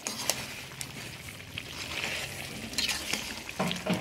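Pork pieces sizzling in a metal pot as they sweat in their own juices and are stirred, with a steady hiss and a few sharp clicks.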